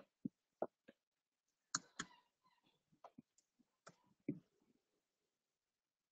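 Near silence broken by about ten faint, short clicks and taps from a digital drawing desk, a stylus and keyboard being worked.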